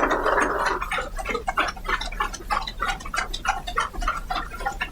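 Applause: many people clapping, with individual claps standing out in an irregular patter.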